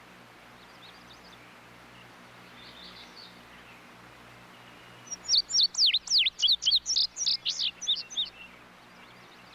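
Indigo bunting singing: one song about five seconds in, a quick run of high, sweeping notes lasting about three seconds, with a few faint high notes before it.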